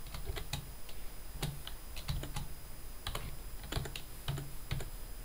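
Typing on a computer keyboard: a run of separate, unevenly spaced keystrokes, a few a second.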